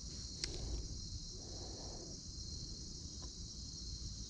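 Steady, even high-pitched chirring of an insect chorus, such as crickets, with a low rumble beneath and two faint clicks, one about half a second in and one a little past three seconds.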